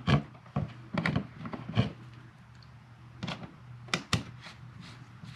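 Irregular clicks and knocks of a screw being driven through a plastic smoke-detector base plate into the ceiling, about half a dozen sharp taps with two close together near the end.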